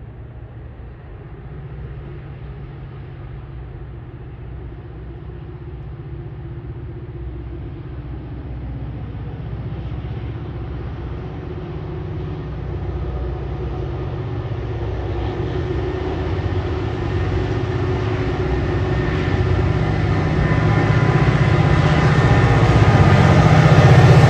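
Aurizon G-class diesel-electric locomotive G533 approaching at the head of a container freight train. Its engine drone grows steadily louder and is loudest near the end, as the locomotive draws level.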